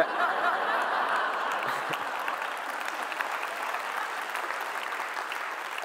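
Large audience applauding. It is loudest at the start and slowly dies away.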